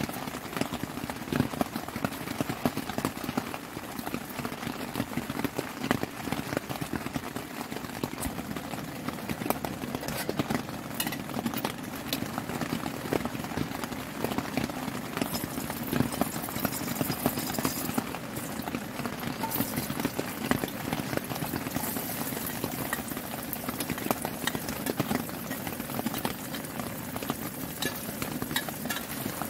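Heavy rain pattering steadily on a tent fly, a dense crackle of drops.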